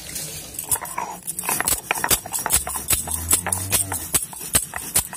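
Stone roller of a sil-nora grinding stone clacking and rubbing against the flat stone slab as roasted cumin seeds are ground to powder: a quick, even run of sharp clacks, about four a second.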